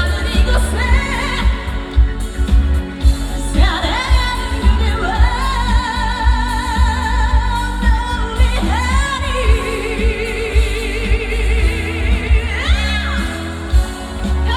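A woman singing a Korean trot song live over an amplified backing track with a heavy bass beat, holding long notes with vibrato.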